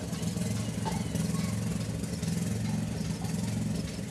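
An engine idling steadily, a low, even hum with no change in speed.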